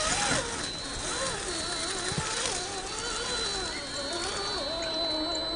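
Brushless 540-size electric motor of a 1/10-scale GMADE BOM RC rock crawler whining under load as it climbs rock, its pitch rising and falling as the throttle is worked, with a thin steady high whine above it.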